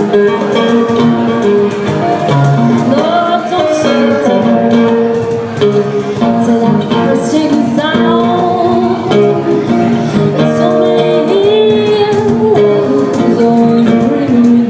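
Live acoustic band music: acoustic guitar playing with a voice singing over it.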